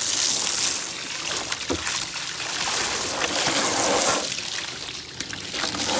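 Garden hose spray nozzle jetting water onto a plastic table top, a steady spattering hiss that swells and dips a little as the spray moves.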